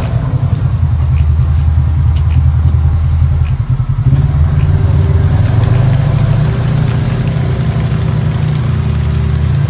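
Off-road vehicle engine running steadily at low revs while driving through shallow river water, easing off briefly about three and a half seconds in.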